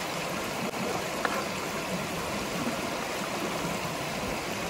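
River water rushing steadily over rocks, a constant even hiss.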